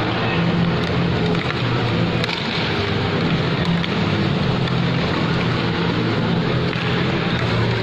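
Steady, loud background noise of a large indoor mall atrium over an ice rink, with a low hum that keeps breaking off and coming back, and a few faint clicks.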